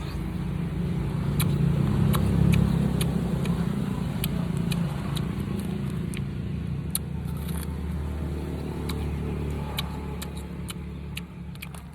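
A low rumble like a passing vehicle swells about two seconds in and slowly fades. Over it come sharp, crisp clicks of someone chewing and crunching sour starfruit (khế tàu).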